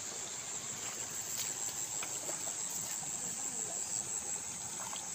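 A chorus of insects chirring in a steady, shrill, high-pitched drone, with a few faint soft clicks under it.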